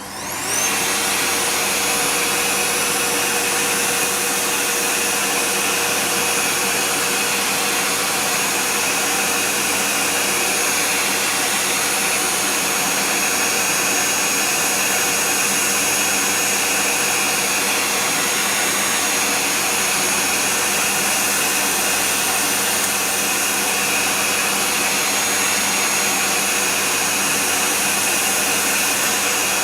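A household vacuum cleaner is switched on. Its motor whines up to speed within the first second, then runs steadily.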